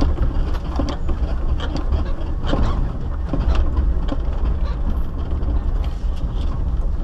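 Off-road vehicle driving along a rough dirt track: a steady low engine and drivetrain rumble, with frequent knocks and rattles from the bumps.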